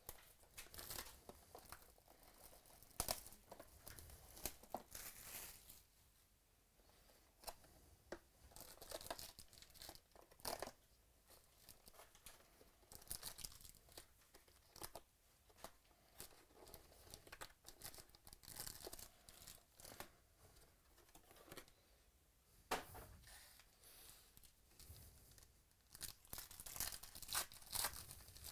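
Plastic shrink wrap torn off a sealed trading-card box, then the box opened and a foil card pack torn open: bursts of tearing and crinkling plastic and foil with short quiet gaps between them.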